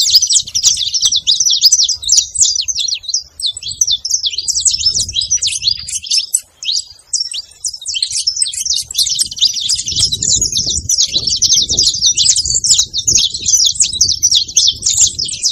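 A flock of saffron finches chirping and trilling together in a dense, continuous chorus of high, quick notes that thins for a moment partway through. A low rumble runs under it in the second half.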